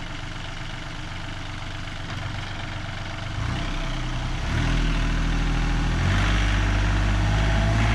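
An engine running steadily at idle, then throttled up in three steps, about three and a half, four and a half and six seconds in, and held at the higher speed.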